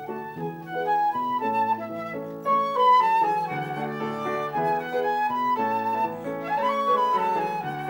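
Flute playing a flowing melody over lower accompanying notes.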